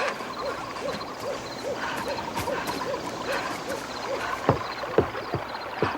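Night-forest sound effect of soft, evenly repeated hooting calls, about two and a half a second. In the second half, several quick falling whistle-like sweeps join them.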